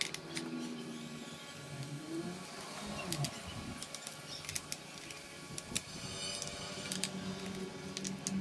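Irregular light clicks and taps from working on a laptop by hand, over a faint steady hum.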